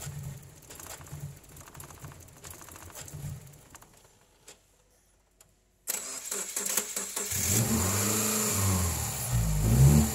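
2010 Subaru Impreza's flat-four engine being started and run: a faint low rumble at first, then near silence, then about six seconds in a sudden loud start as it cranks and catches, and the engine runs and is revved, its pitch rising and falling.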